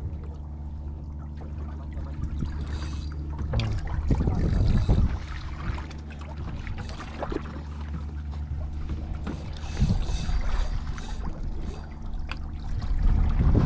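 Boat's outboard engine idling steadily, with water and wind rushing louder about four seconds in and again near the end.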